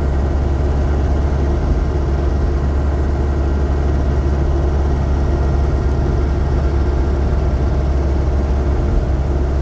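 Land Rover Series 2a's engine and drivetrain running steadily at a constant road speed, a loud unchanging low drone.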